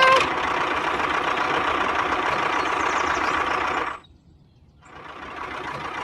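Small electric motor in a DIY model machine running with a steady whir, cutting off about four seconds in and starting again, softer, about a second later.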